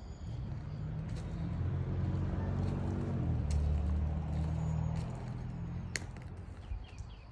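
Low engine hum of a passing motor vehicle, growing louder toward the middle and fading away near the end, with a few short clicks.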